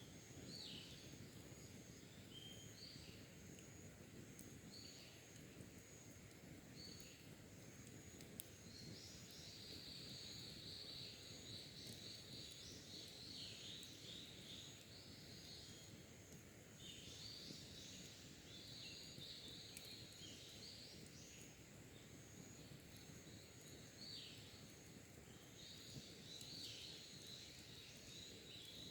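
Wild birds singing faintly in repeated short phrases, over a low steady hiss.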